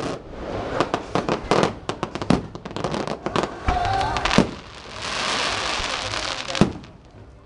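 Aerial fireworks shells bursting overhead: a dense run of rapid crackling reports, then steadier crackle with a few louder single bangs, the last near the end.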